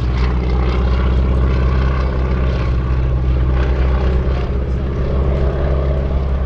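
Boeing Stearman biplane's radial engine and propeller droning steadily in flight.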